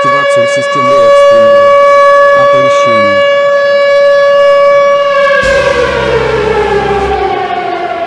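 Civil defense siren sounding one steady, loud tone, then falling in pitch as it winds down from about five and a half seconds in.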